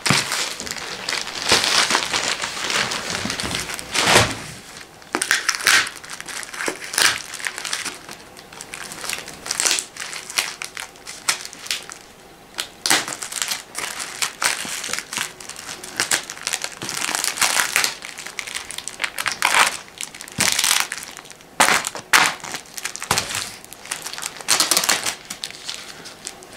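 Plastic packaging crinkling and rustling as yellow plastic courier tape and a plastic mailer bag are pulled and torn off a cardboard parcel, in irregular rustles and short rips.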